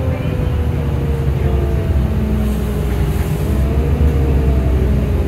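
A transit bus's Cummins ISL diesel engine and Allison B400R6 automatic transmission running under way, heard from inside the cabin: a steady low drone with a whine that eases down in pitch, then climbs again in the second half.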